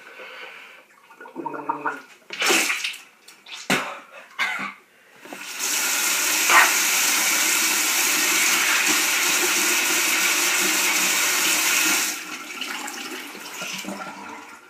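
A few hard coughs and a short groan from someone choking on a spoonful of dry cinnamon, then water runs steadily for about six seconds before stopping.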